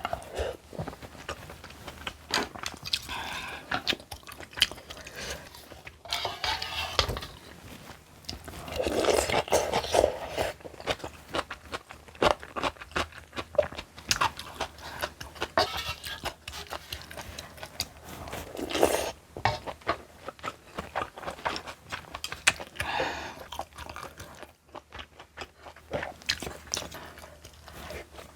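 Close-miked eating: repeated crunchy bites and chewing of crisp kimchi, with many small crackles and a few longer, louder stretches.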